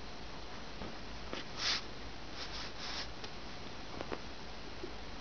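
A few short breathy puffs close to the microphone, the clearest about a second and a half in, over a steady faint hiss.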